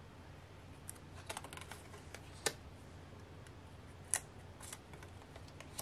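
Photo cards clicking against each other as they are handled and flipped through the stack: a few separate light clicks, the sharpest about two and a half seconds in and another about four seconds in.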